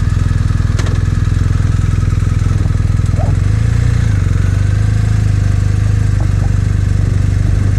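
BMW R1250RT's 1254 cc boxer twin idling steadily, with a brief small rise in revs about halfway through.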